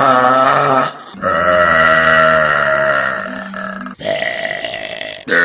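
A person burping loudly. One burp ends about a second in, then a long drawn-out burp holds a steady low pitch for about three seconds and trails off, and another burp begins near the end.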